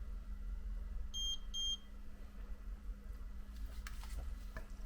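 Two short, high electronic beeps from a screen data-transfer programmer, as it registers the iPhone 7 screen just connected to it for reading its True Tone data.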